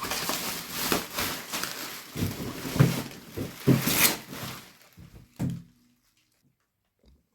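Irregular rustling and a few knocks and thunks from handling a boxed toy figure and its packaging. The sounds stop about five and a half seconds in.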